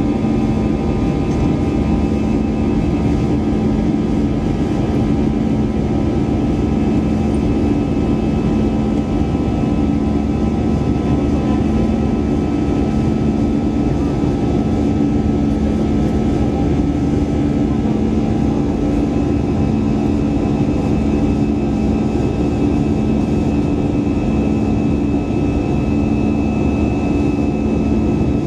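Airbus A320-200 jet engines running steadily: a constant, even engine noise with a low steady hum and fainter higher tones, unchanging throughout.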